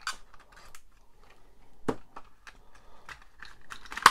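Clear plastic blister pack crackling and clicking as fingers press it open and work a Hot Wheels die-cast car out of it. There is a sharper click about two seconds in and a loud snap near the end.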